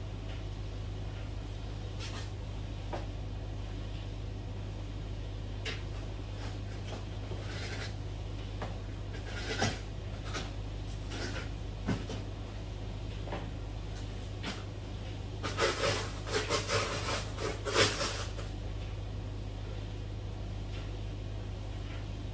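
Plastic-bagged ice candy being handled and laid into a chest freezer: scattered light knocks and rustles, with a run of crinkling rustles about two-thirds of the way through, over a steady low hum.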